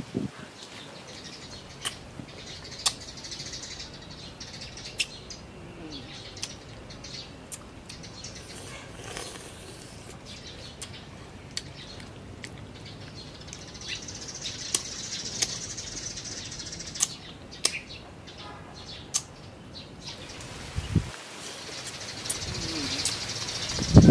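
Close-up eating sounds of small firm fruit: sharp crisp bites and chewing clicks every second or two, the loudest bite near the end. Birds chirp in the background, louder in two stretches.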